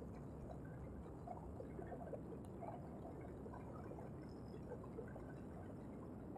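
Muffled wind and road noise on the microphone of a moving vehicle: a steady low rush with small, irregular blips through it.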